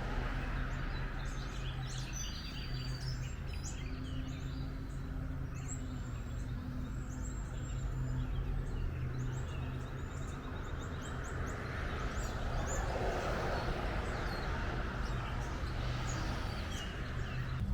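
Small birds chirping and calling in quick short notes, over a steady low rumble and hiss of outdoor background noise.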